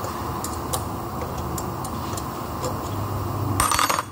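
Light, irregular metallic clicks and taps from hand work on the motor-to-gearbox mounting, over a steady workshop hum. A short, louder scraping burst comes near the end.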